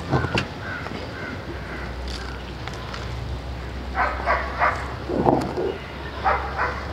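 Short animal calls over a low steady hum: three in quick succession about four seconds in, a lower one about a second later, and two more near the end.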